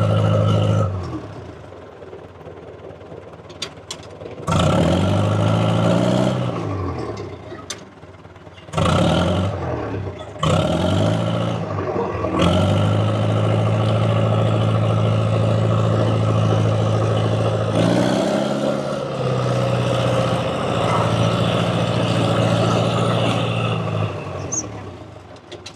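Dresser TD7E crawler dozer's diesel engine working as the machine pushes against a small dead oak: the engine drops back about a second in, revs up around four and a half seconds, eases and climbs again a few times, then runs steadily under load for most of the rest, dipping briefly near eighteen seconds. A few sharp clicks sound in the quieter stretch around four seconds in.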